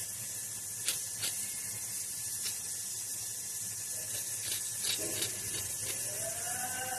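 Hand vegetable peeler scraping the skin off a vegetable in short strokes, each heard as a light scrape or click, over a steady high hiss.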